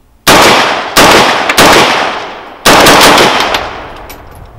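Four unsuppressed shots from a 7.62x39 AR-15 rifle. The first three come about two-thirds of a second apart, and the fourth about a second later. Each shot is followed by a long echo that dies away.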